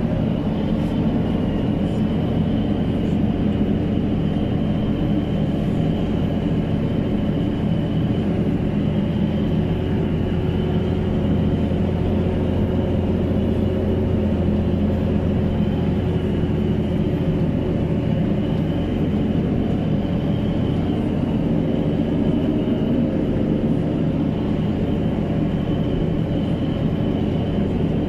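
Fendt 924 Vario tractor's six-cylinder turbodiesel running steadily under load, heard from inside the cab, while the tractor pulls a Vogel & Noot Terra Dig XS subsoiler. A deep, even drone carries through with a thin, steady high whine above it.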